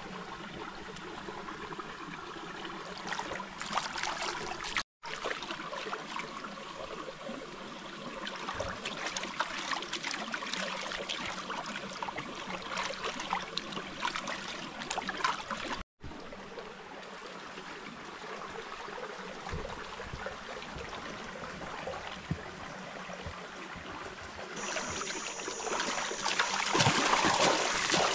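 River water trickling and lapping around bare feet dipped in it. About three seconds before the end it grows into louder splashing as the feet kick the water.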